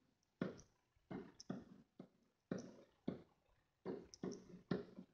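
Pen strokes on a whiteboard as numbers are written: about eight short, sudden scrapes and taps at an uneven pace, each dying away quickly.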